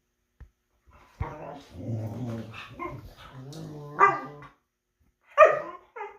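Dogs play-fighting: a run of low growling from about a second in, then two sharp barks, the louder one near the end.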